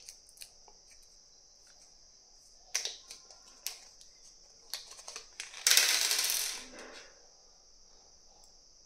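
Small plastic hardware bag and screws being handled: a few sharp small clicks and clinks, then a loud crinkling rustle of the plastic bag lasting just over a second, about five and a half seconds in.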